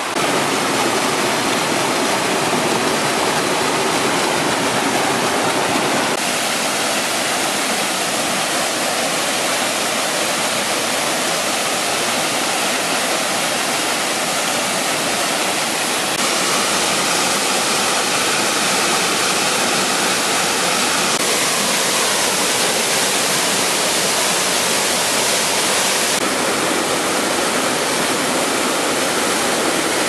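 Mountain stream and waterfall rushing and splashing over rocks in a steady roar of water. The tone of the water changes abruptly a few times as the view switches from one cascade to another.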